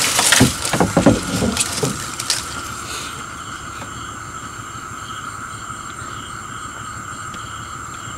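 Palm fronds rustling and scraping over the boat's bow for the first couple of seconds. After that comes a steady night chorus of insects: constant thin high tones with a soft chirp repeating under a second apart.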